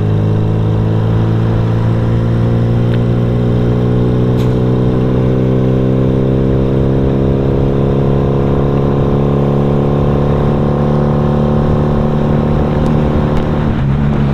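Motorcycle engine running steadily while riding, its pitch creeping slowly upward as it gathers speed.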